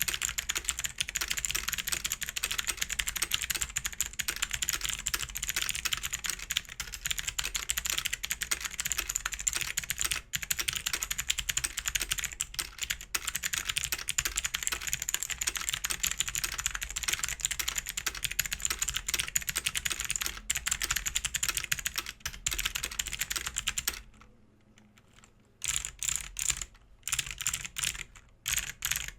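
BAJEAL K100 mechanical keyboard with clicky switches being typed on fast and continuously on a desk mat, a dense stream of sharp clicks. About 24 s in the typing stops for a second or two, then resumes in short bursts.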